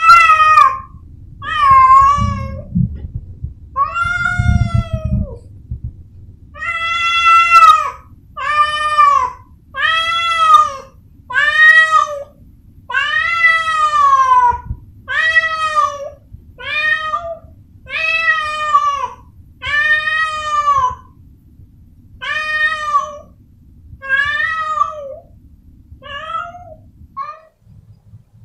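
A domestic cat meowing over and over in a loud calling cry, about one meow a second. Each meow rises and then falls in pitch. A low rumble sits under the first few calls.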